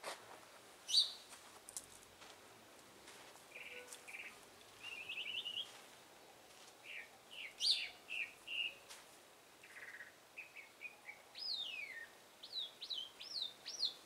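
Songbirds calling: scattered sharp chirps and short twittering phrases, with a clear downward-sliding whistle about three-quarters of the way through, followed by a quick run of rising-and-falling notes.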